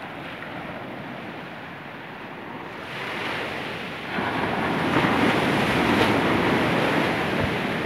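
Surf breaking on a sand beach: a wave builds about three seconds in, crashes and washes up the shore, loudest past the middle, then eases as it runs out.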